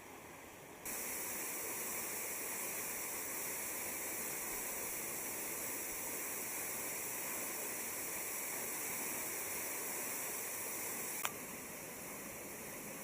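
Waterfall rushing: a steady hiss of falling water. It jumps louder about a second in, then drops back after a sharp click near the end.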